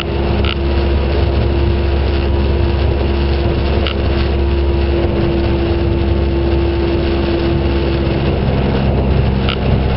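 Motor boat's engine running steadily, a continuous low drone heard on board. A few short high chirps sound over it.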